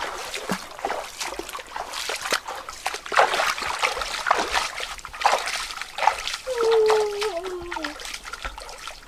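Bare feet wading through a shallow, rocky stream, splashing and sloshing with each step. About two thirds of the way in there is a short drawn-out call that slowly falls in pitch.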